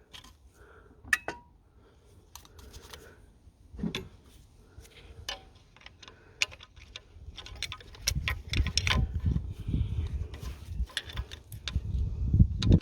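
Small hand tools clicking and scraping on the plastic leak-off pipe clips and connectors of a diesel fuel injector, with scattered sharp clicks. From about eight seconds in come low dull knocks and rumbling handling noise, the loudest a thump near the end.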